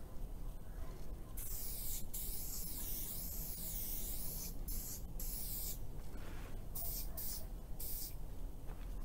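Aerosol spray-paint can hissing in bursts: one long spray of about three seconds, then several short sprays, over a low steady rumble.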